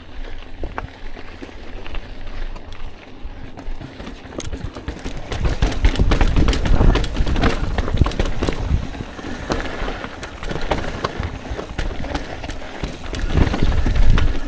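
Mountain bike riding down a rocky dirt trail: wind rumbling on the microphone under a rattle of irregular clicks and knocks from the tyres and bike over rocks. It gets louder about five seconds in and again near the end.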